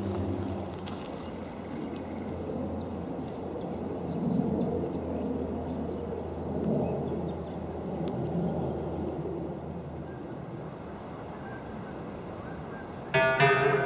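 Outdoor ambience with a steady low hum that stops about ten seconds in and a few faint, short high chirps, likely small birds. Plucked-string background music starts near the end.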